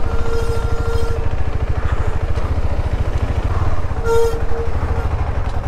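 KTM 390 Adventure's single-cylinder engine running at low road speed with its steady exhaust pulse. A steady buzzing tone sounds over it twice, for about a second at the start and again briefly about four seconds in.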